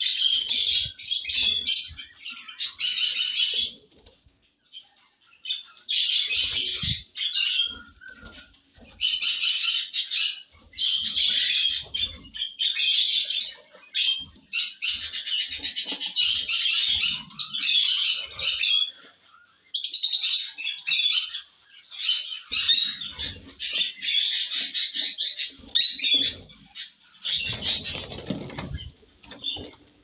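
Caged plum-headed parakeets chattering in bursts of rapid, high calls, each run one to a few seconds long with short pauses between. Near the end comes a flurry of lower, rustling wing flaps.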